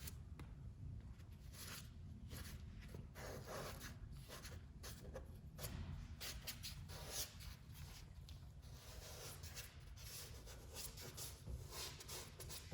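Faint, irregular scraping and rubbing of a blade spreading MH Ready Patch patching compound into small holes in crown molding, in short strokes.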